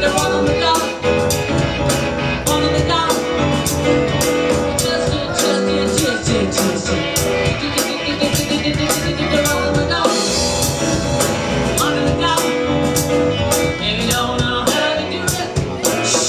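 A live rock-and-roll/R&B band playing, with a steady drum-kit beat, guitar and bass, and short sung lines here and there.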